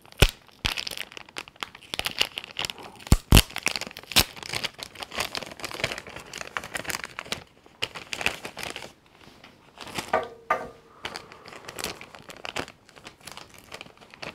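A small packet holding the toy's roof-cannon parts being opened by hand: packaging crinkling and tearing, with several sharp clicks and a brief squeak about ten seconds in.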